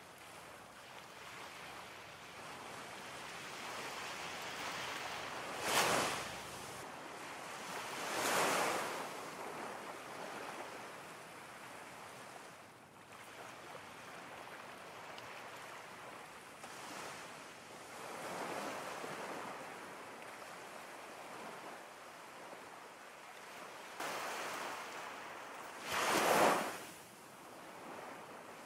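Steady rushing water noise with four louder swells that each rise and fall away within about a second, the strongest near the end.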